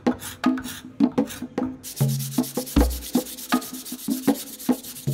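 Hand sanding a purpleheart wood hammer handle with sandpaper: a steady rasping hiss that starts about two seconds in. Under it throughout is rhythmic music of wood-block-like percussion and bass notes.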